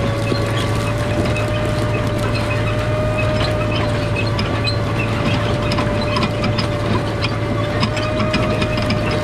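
Case IH 7120 tractor's six-cylinder diesel running steadily under load while pulling a corn planter, with a held whine over a steady low hum and light clicking and rattling throughout.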